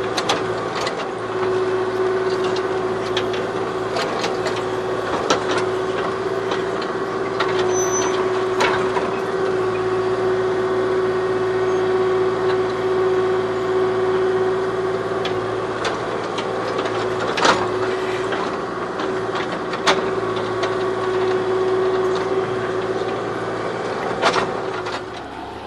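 Kubota KX040 mini excavator's diesel engine running steadily under load while it digs a trench, with a held high tone and scattered knocks and scrapes of the bucket working the ground. The engine drops back just before the end.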